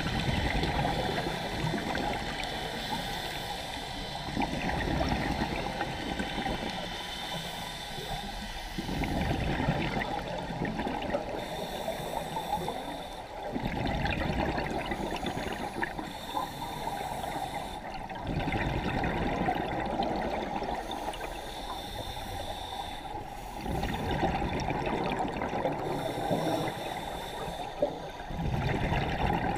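Scuba regulator exhaust bubbling underwater as a diver breathes: a gurgling rush of bubbles about every four to five seconds, each lasting a couple of seconds, with a steady hiss of water between.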